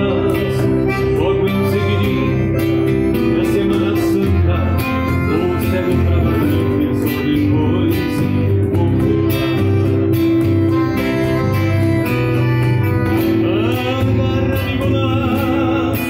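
Gaúcho folk music played live, led by a piano accordion holding sustained chords, with guitar, electric bass and a man's singing voice.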